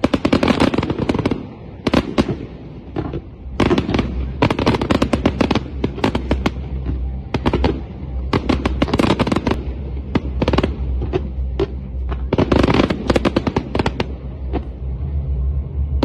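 Fireworks display: aerial shells bursting in rapid clusters of sharp bangs and crackles, with a steady low hum underneath.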